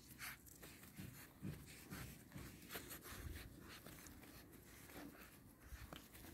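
Faint scratching and rustling of Cane Corso puppies' paws scrambling on a fabric ground cover as they are handled, with a few soft taps.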